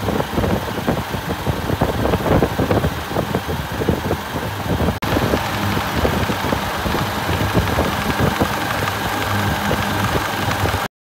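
A 30 kW commercial cold room refrigeration compressor running loud and steady, with a low hum under a dense, irregular rattle.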